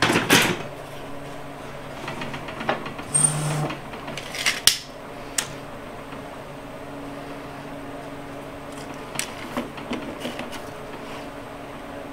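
Hand-tool handling at a stopped table saw: a tape measure pulled out along the table and the rip fence set, heard as a few sharp clicks and knocks with a brief rattle about three seconds in. A faint steady hum runs under the quieter second half.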